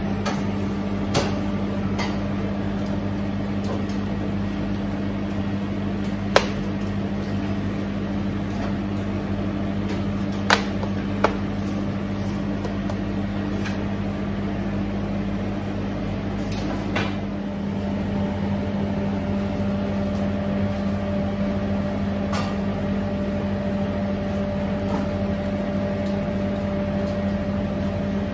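Steady hum of bakery kitchen machinery, with a second, higher tone joining about two-thirds of the way through. A few short, sharp clicks and taps come from dough pans and small metal cups being handled on a steel tray.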